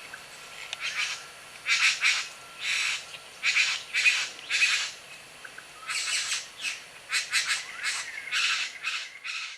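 A bird giving a series of short, harsh, raspy squawks, about fifteen spread over several seconds, some in quick pairs.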